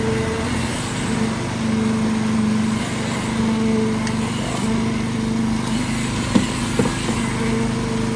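Small engine of a concrete poker vibrator running steadily as its needle works the freshly poured concrete, the hum swelling and easing a little. Two sharp knocks in quick succession a little over six seconds in.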